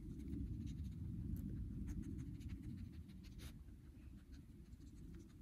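Dog sniffing and nosing along cinder blocks during a scent search, heard as faint irregular scratchy sniffs and rustles over a steady low rumble of wind on the microphone.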